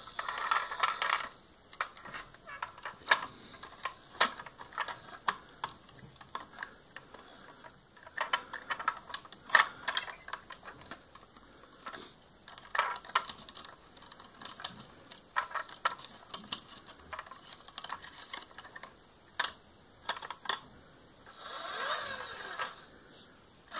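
Plastic toy fire engine being handled: irregular clicks and ratchet-like clatter from its plastic ladder mechanism as the ladder is moved and raised.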